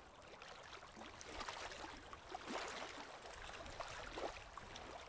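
Calm lake water lapping faintly on a stony shore, in small irregular plops and trickles.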